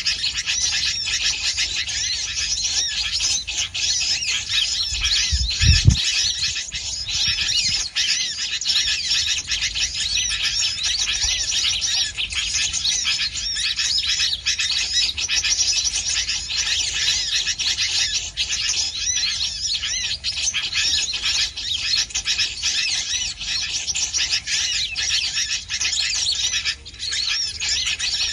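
Dense, continuous high-pitched chirping and twittering of small birds, with a single low thump about six seconds in.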